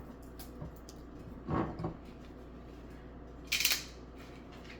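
Kitchen handling sounds: a dull knock about a second and a half in, then a short hissy scrape a couple of seconds later.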